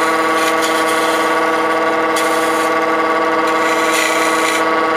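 Wood lathe running with a steady tonal whine from its motor, while a turning gouge scrapes the spinning wooden pen blank to round its end.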